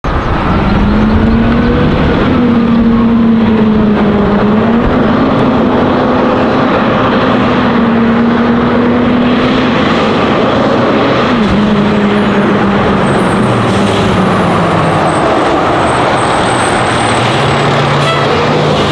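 2010 Spartan Metrostar fire engine's diesel engine running as the truck drives past, its note rising and falling with throttle and gear changes and dropping lower in the second half as it slows.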